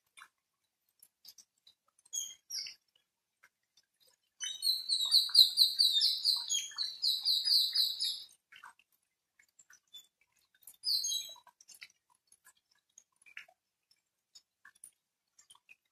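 A bird sings a fast run of repeated high chirps for about four seconds, with short calls shortly before and a few seconds after. Scattered drips and small ticks of falling rainwater sound throughout.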